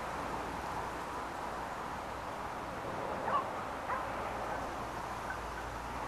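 A distant hunting dog barks twice, short calls a little over half a second apart, over steady outdoor field noise.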